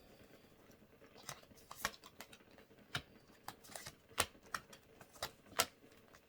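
Tarot cards being shuffled and handled: a string of about a dozen irregular sharp clicks and flicks, starting about a second in.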